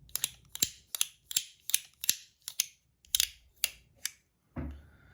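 Fidget slider coin's metal plates being slid back and forth, giving a run of about ten sharp clicks, two or three a second, that stop about four seconds in.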